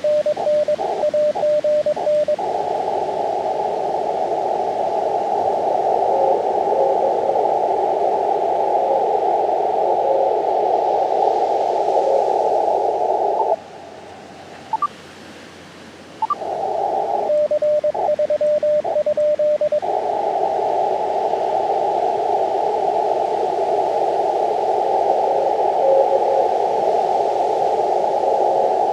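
Elecraft KX2 transceiver's CW audio: a steady band of filtered receiver hiss with Morse code tones keyed in short bursts near the start and again about two-thirds through, and fainter, lower-pitched Morse signals in between. About halfway the hiss drops out for nearly three seconds, broken by a couple of clicks.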